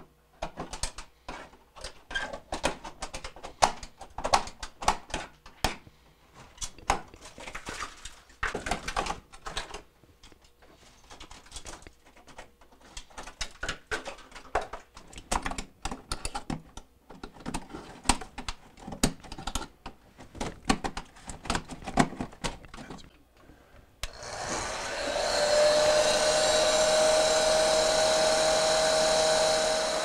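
A screwdriver chipping and scraping ice off a frosted refrigerator evaporator coil: a quick, irregular run of clicks and scrapes. For the last six seconds a hand-held electric hot-air blower runs steadily with a whine, louder than the scraping.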